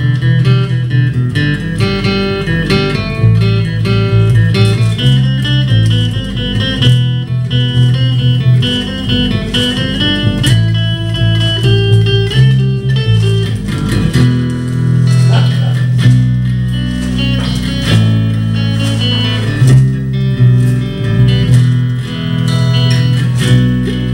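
Live guitar and bass guitar playing an instrumental break in a song, with a steady run of changing bass notes under plucked guitar lines.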